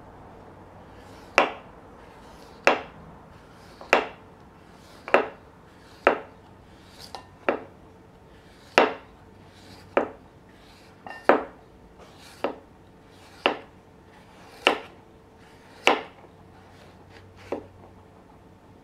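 Knife chopping on a cutting board: about fourteen sharp, evenly spaced chops, roughly one a second.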